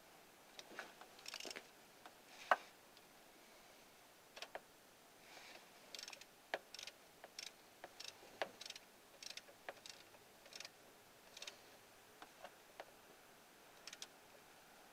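Faint ratchet clicking in short, irregular runs as a socket wrench snugs down the thermostat housing bolts, with a few light scrapes of metal in between.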